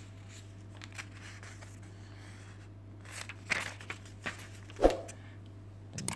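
Glossy pages of a thick recipe book being turned and handled: paper rustling and flapping, with a louder page slap about five seconds in, over a steady low hum.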